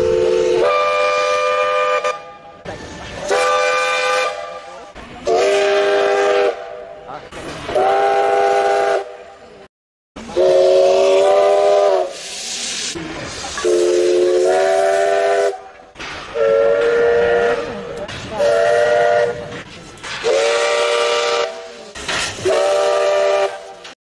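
Multi-chime steam locomotive whistle sounding a series of short chord blasts, about a second each, with steam hiss between them and a brief break about ten seconds in.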